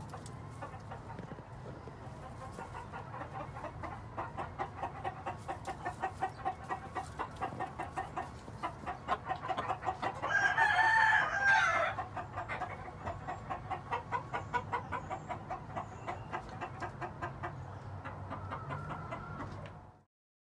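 Mule Train grey gamecock clucking in a quick, even rhythm, with one crow about halfway through that lasts a couple of seconds and drops in pitch at the end. A low steady hum runs underneath.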